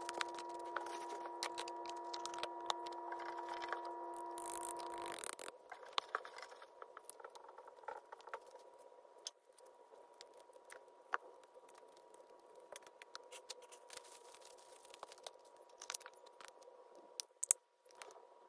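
Hands working coco-fibre substrate, dry leaf litter, bark and moss in a plastic tub: scattered light crackles, scrapes and clicks, with a couple of sharper taps. A steady hum sounds under the first five seconds or so, then cuts off suddenly.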